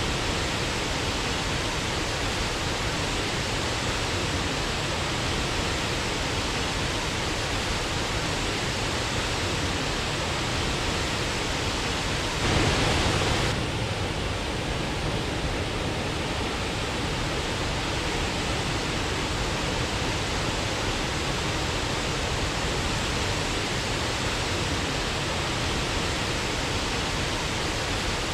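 Waterfall: a steady, even rush of falling water, with a brief swell lasting about a second near the middle.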